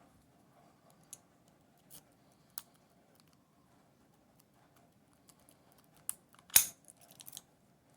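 A rake pick being worked in the keyway of a Brinks 44mm laminated pin-tumbler padlock: faint scattered metallic clicks and scrapes, then a burst of louder clicks with one sharp snap about six and a half seconds in, the sign of the lock being raked open.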